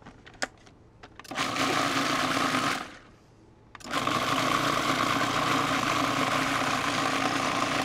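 A few light clicks, then a kitchen blender runs briefly, stops for about a second, and starts again, running steadily as it purees chimichurri.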